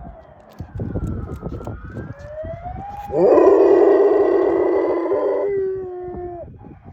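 A golden retriever howls along with an emergency-vehicle siren. The siren wails slowly up and down in the background. About three seconds in, the dog starts one long, loud howl that rises, holds steady, then fades and drops in pitch near the end.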